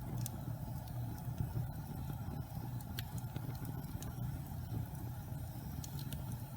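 Log fire burning with a steady low rumble, broken by scattered sharp crackles and pops from the burning wood, a few of them close together near the end.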